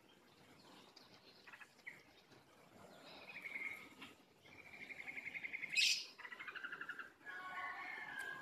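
A songbird singing in rapid trilled phrases, starting about three seconds in. The longest trill ends in a sharp high note around the middle and is the loudest part. More trills and warbling follow.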